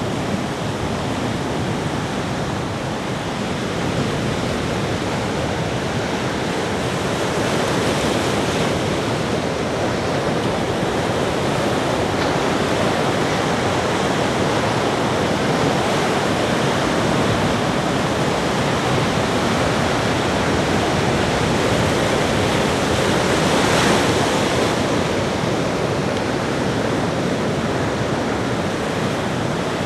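Ocean surf: a continuous wash of breaking waves, swelling and easing slowly, with one stronger wave cresting about three-quarters of the way through.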